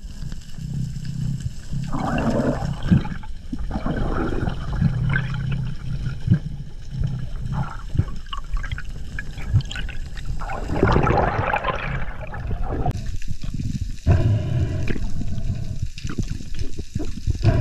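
Underwater water noise: water rushing and bubbling around a diver's camera as it moves through the sea, swelling and easing unevenly.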